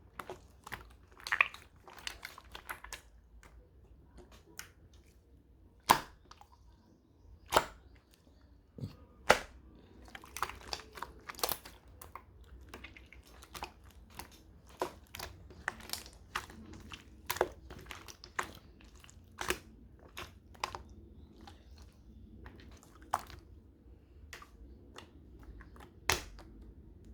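Slime being pressed and stretched by hand, making sharp popping clicks at irregular intervals, sometimes in quick clusters and sometimes spaced a second or more apart.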